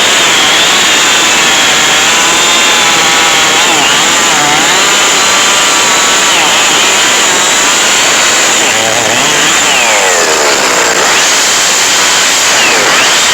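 Chainsaw running at high revs through a cut, its pitch dipping as it loads about four seconds in and dropping sharply around ten seconds in before climbing back up.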